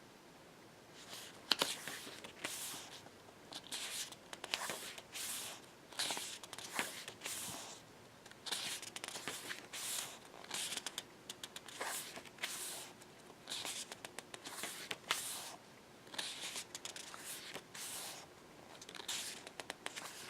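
Paper pages of an album photobook being turned and handled one after another: short rustles and swishes about once a second, with small taps and clicks.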